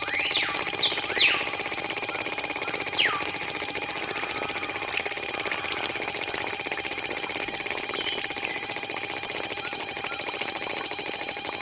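Small battery-powered DC motor of a miniature model concrete pump running with a steady whine, pushing wet concrete through a hose. A few quick high whistled chirps come near the start and again about three seconds in.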